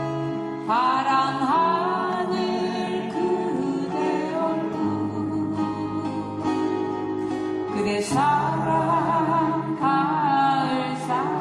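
Acoustic guitars playing a Korean folk-pop ballad with a singer. The sung line comes in about a second in, pauses briefly about eight seconds in, then carries on.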